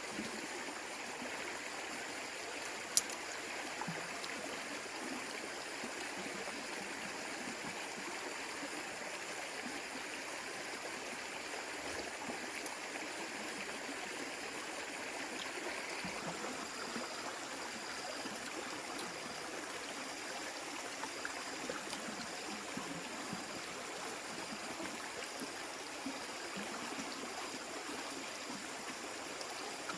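Stream water running steadily, with a single sharp click about three seconds in.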